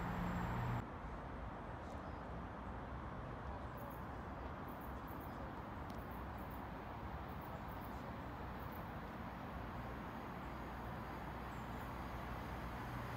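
Faint steady low hum of a distant CrossCountry Class 220 Voyager diesel train approaching, over quiet outdoor background noise, growing slightly near the end. A louder train sound cuts off abruptly under a second in, and a few faint high chirps come in the middle.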